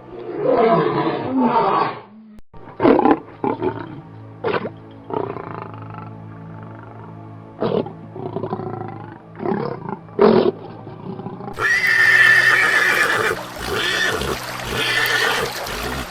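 Wild animal calls, a row of short separate calls one after another, over a low, steady background of music. About three-quarters of the way through the sound changes abruptly to brighter, higher and longer calls.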